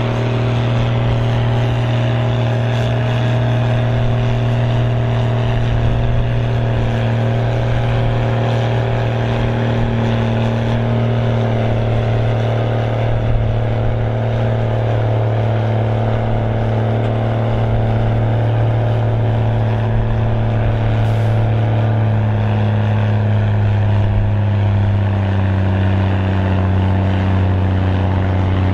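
Mercedes-Benz MB Trac 1500's turbocharged six-cylinder diesel engine running hard under load as the tractor pulls the weight sledge. It runs at a steady pitch, then its engine speed drops a little over the last few seconds as the sledge's load builds.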